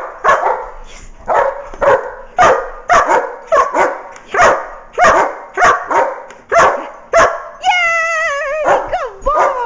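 Search-and-rescue dog barking steadily at close range, about two barks a second: his trained bark indication, the signal to his handler that he has found someone. Near the end the barking breaks into a drawn-out, wavering whine before a few more barks.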